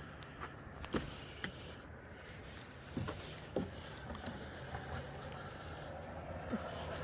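A few footsteps on snow, sharp single steps at uneven spacing, over a steady low rumble.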